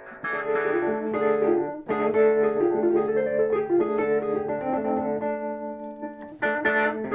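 Vintage electric-piano-type keyboard playing chords under a melody line, run through a late-1970s Boss Spectrum SP-1 pedal. There is a brief break about two seconds in, and a run of short, sharply struck chords near the end.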